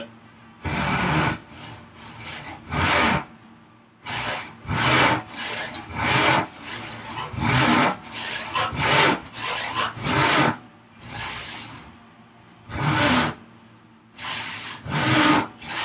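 Large handsaw cutting through a wooden board by hand: rasping strokes, roughly one a second at an uneven pace, with a few short pauses.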